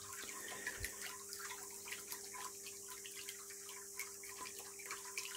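Small 5-watt solar water pump, just reconnected as the load, running with a faint steady hum and water trickling.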